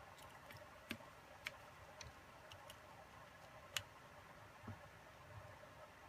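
Faint, irregular small clicks and ticks from a small Phillips screwdriver driving tiny screws into a DJI Phantom 3 gimbal motor, the sharpest click a little under four seconds in, over quiet room tone.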